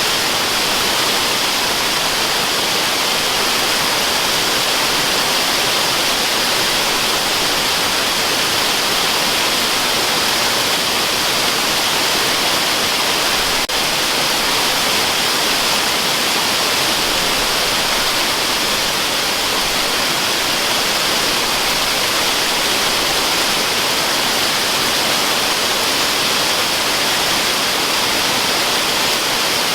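A waterfall rushing steadily, an even hiss with no breaks, strongest in the upper middle range. A single faint tick comes about halfway through.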